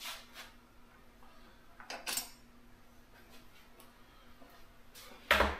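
Light metallic clinks of small bolts being handled, one clearer clink about two seconds in, then a single louder clunk near the end.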